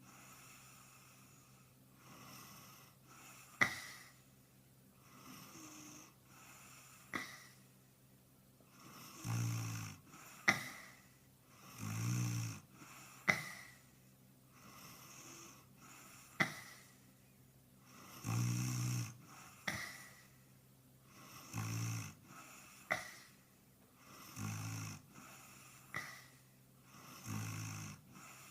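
A person snoring in a sped-up, pitched-up nightcore edit. A breathing cycle of about three seconds repeats, with low rough snores and a short sharp puff or snort, the loudest sound, on each breath.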